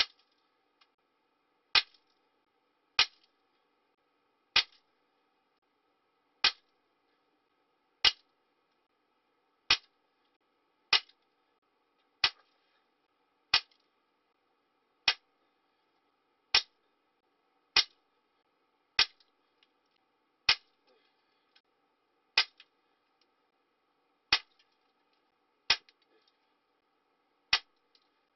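Umarex 850 Magnum .177 CO2 air rifle firing a long string of shots, about eighteen, one every second and a half or so, each a sharp crack. Fainter small ticks follow some of the shots.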